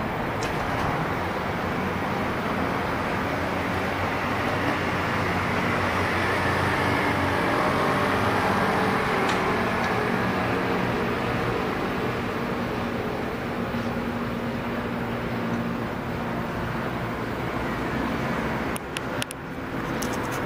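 Steady roar of city road traffic that swells gently and then eases off, with a few sharp clicks near the end.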